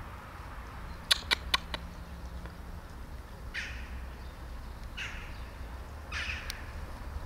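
A bird giving three short harsh calls, about a second and a half apart, in the second half. Earlier, about a second in, come four quick sharp clicks, all over a steady low rumble.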